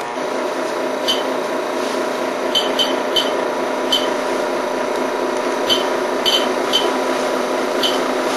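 Steady machine hum with a hiss, broken by about a dozen faint sharp clicks scattered at irregular moments.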